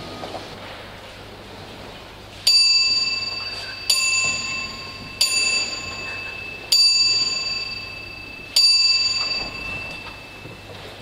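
A small, high-pitched bell struck five times at slightly uneven intervals, each strike ringing on and fading before the next. A steady low hum runs underneath.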